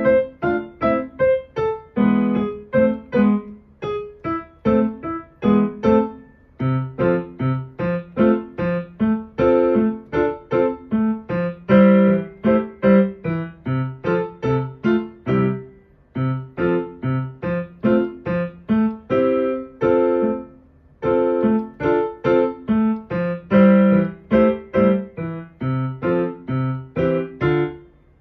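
Piano played in short, detached notes and chords at a lively pace, with brief pauses between phrases: a practice run-through of a beginner's piece.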